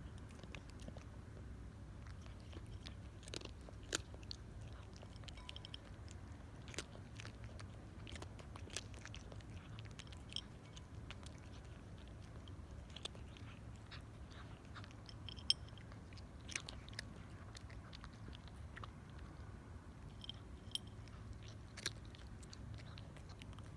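A cat crunching dry kibble: irregular crisp cracks and crackles as it bites and chews, over a low steady hum.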